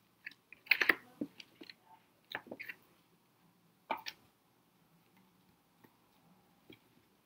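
Stiff paper pages of a handmade pop-up book being flipped by hand: short papery slaps and rustles, the loudest about a second in, more around two and a half and four seconds in, then only a few faint ticks.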